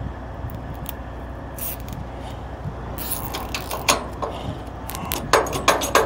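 Metal clicks and rattles from a gloved hand working a cable and connector under a trailer's rear light bar, starting about halfway and loudest near the end, over a steady low rumble.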